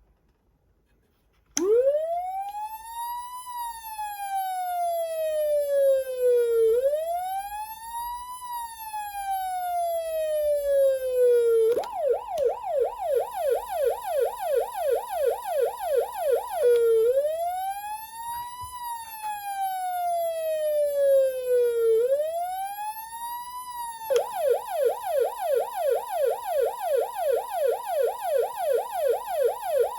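Vintage Carson SA-400-63 electronic siren amplifier sounding its tones: after about a second and a half of silence, a slow wail that rises and falls roughly every five seconds. It switches to a fast yelp of about three sweeps a second, goes back to the wail, then ends on the yelp again.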